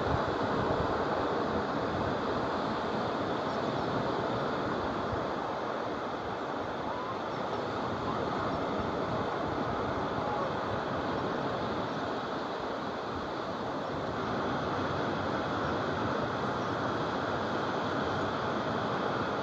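Steady wash of small waves breaking and running up a sandy beach.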